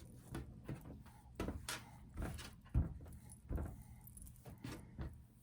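Scattered light taps and knocks, about a dozen at uneven intervals, from hands working cookie dough and handling things on a kitchen counter.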